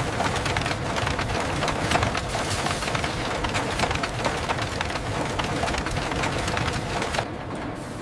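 Wire-drawing machinery running in a mill, a steady dense clatter of rapid clicks and rattles over a mechanical rumble.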